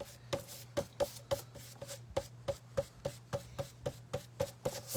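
Paintbrush swiping and tapping on a flat canvas artboard, a quick steady rhythm of about three strokes a second while acrylic paint is blended almost dry. A low steady hum runs underneath.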